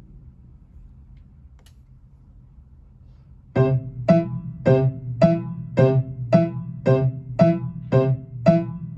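Piano: after about three seconds of near quiet, the same short note or chord is struck over and over at a steady pace, about two strikes a second, each dying away quickly.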